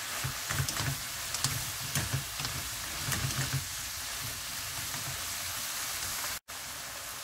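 Sweet potato stems sizzling in oil in a nonstick frying pan while wooden spatulas stir and toss them. The spatulas tap and scrape the pan mostly in the first half, over a steady hiss of frying.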